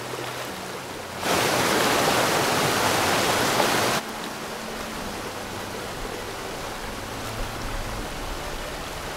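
Water rushing through the open sluices of a canal lock gate as the chamber empties. It is a steady wash of running water that grows much louder about a second in and cuts off suddenly about three seconds later.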